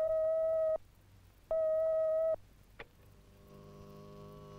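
Two steady electronic beeps, each about a second long with a short gap between them: the Tracy Island intercom call signal, announcing an incoming call from John on the space station. A faint click follows, then a low steady hum.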